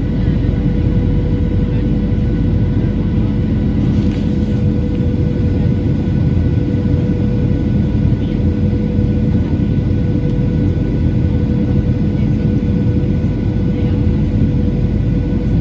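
Cabin noise inside a Boeing 737-900 airliner on approach: a steady heavy rumble from the CFM56-7B turbofan engines and airflow, with a constant hum tone running through it.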